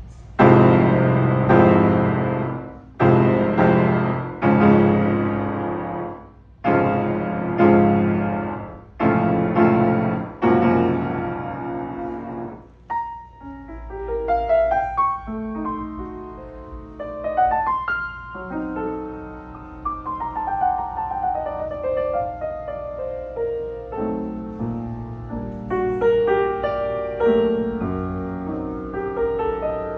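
Restored Steinway Model M grand piano being played: loud, full chords struck one after another and left to ring out for roughly the first dozen seconds, then a softer passage of flowing runs and broken chords.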